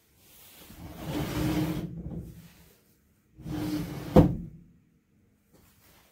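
Paper-covered fusuma sliding door of a tatami tea room slid shut in two strokes: a long slide, a pause, then a shorter slide that ends in a sharp knock as the door meets the frame.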